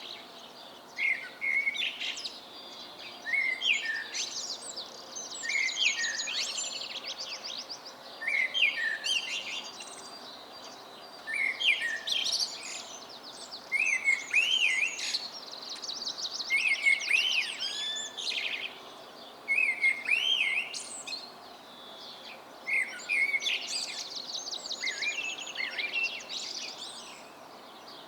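Songbirds singing in a dawn chorus: short, fast-trilled song phrases recurring every few seconds, with chirps between them.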